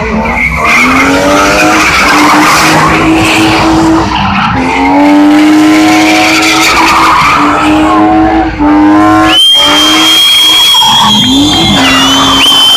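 A car doing donuts in a burnout, its engine held at high revs while the rear tyres spin and scrub. The revs dip briefly a couple of times. About nine seconds in, a high, steady tyre squeal starts.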